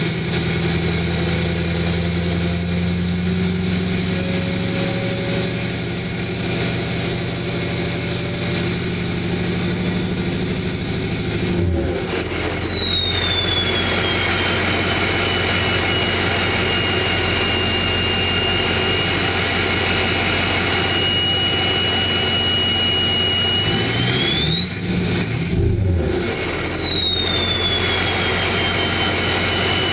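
Ford Power Stroke turbo-diesel truck engine running with a loud, high turbo whistle. The whistle climbs slowly while the engine is held up, then falls away as the engine drops back to idle about a third of the way in. Near the end a quick rev sends the whistle sharply up and back down.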